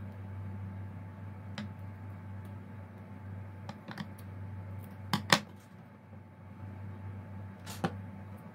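Scattered light clicks and ticks of gold plastic curling ribbon and its spool being handled while tying a bow, the loudest a quick pair of sharp clicks about five seconds in, over a steady low hum.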